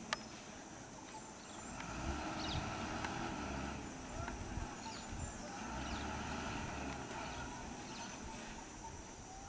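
Low roadside ambience: a stopped bus's diesel engine idling, with faint voices and a few short chirps.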